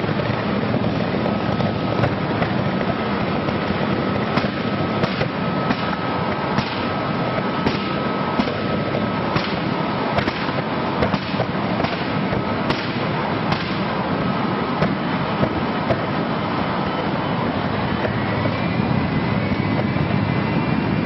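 Flame-effect devices firing: a steady loud rushing noise with many sharp cracks and pops. A high whine rises in pitch in the last few seconds.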